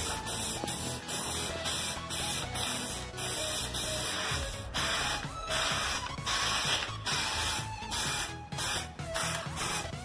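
Aerosol spray-paint can (Colorgin general-purpose) hissing in long bursts with short breaks, laying a coat of white paint onto a refrigerator's metal cabinet. Background music plays underneath.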